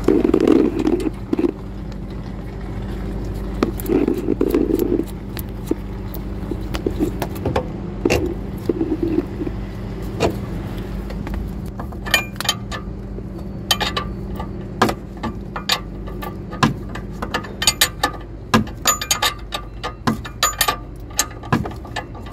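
Open-end spanner clicking and clinking against the ball-joint nut of a Mercedes W203 front stabilizer link as the nut is worked tight, many sharp metal clicks in the second half. A steady low hum runs underneath and stops a few seconds before the end.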